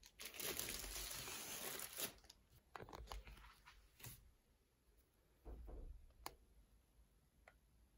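Packaging being torn and crumpled for about two seconds, then scattered light handling clicks and rustles that thin out.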